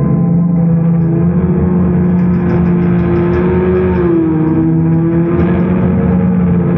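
Distorted electric guitar through effects pedals and a Marshall amp, holding long droning notes; the higher note sags in pitch and comes back about four seconds in.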